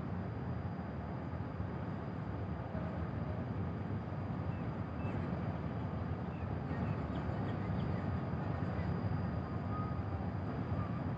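Low, steady rumble of a large passenger ship's engines running at the berth before departure, with a few faint short high chirps in the middle.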